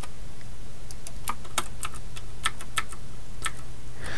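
Keystrokes on a computer keyboard: irregular, separate clicks, a dozen or so, over a steady low hum.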